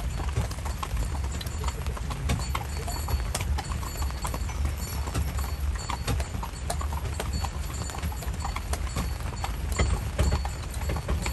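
Carriage horse's hooves clip-clopping at a steady walk, many sharp irregular clops, over a steady low rumble.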